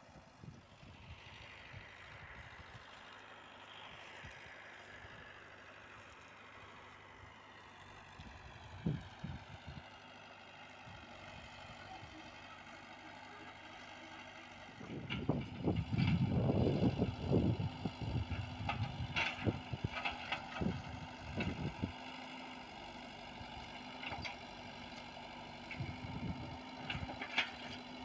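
Komatsu PC78UU mini excavator's diesel engine running steadily, with a steady high whine over it. About halfway it becomes much louder, with irregular knocks and clanks from the working machine.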